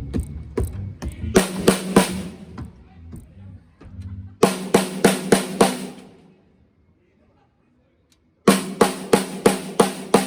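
Yamaha maple drum kit struck in short runs of single, evenly spaced hits, each with a pitched drum ring, as in a sound check of one drum at a time. A run of about six hits comes midway, then a silent gap of about two seconds, then another steady run at about three hits a second near the end.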